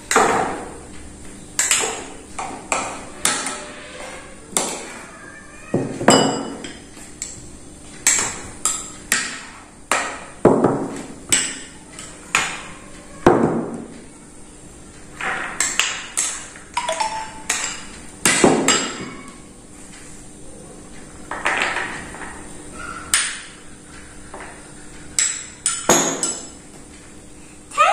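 A metal spoon clinking and tapping against ceramic bowls and a ceramic plate while fruit is scooped and served into a fruit salad: irregular sharp clinks, about one or two a second, each with a short ring.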